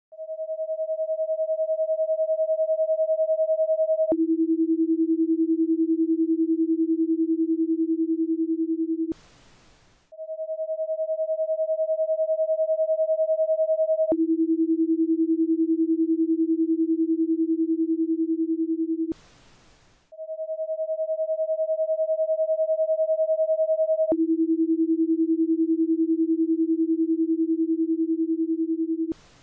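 Paced-breathing cue tones: a steady higher electronic tone for about four seconds marks the in-breath, then it drops to a steady lower tone for about five seconds marking the out-breath, followed by a one-second pause. The ten-second cycle repeats three times.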